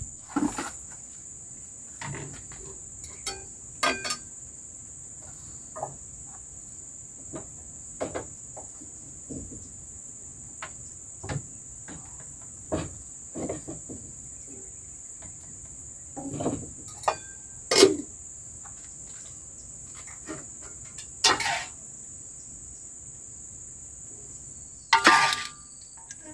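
Steady high-pitched chorus of crickets, with irregular clicks, knocks and scrapes of utensils against cookware and dishes while food is served; the loudest knocks come about eighteen seconds in and near the end.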